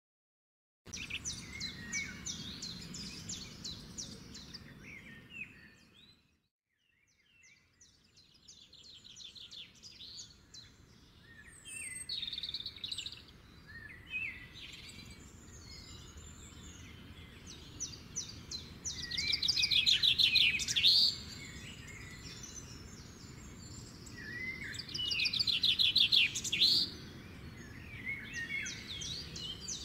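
Songbirds chirping and singing in rapid trills, with a short silent break about a fifth of the way in and the loudest trilled phrases about two-thirds of the way through and again near the end.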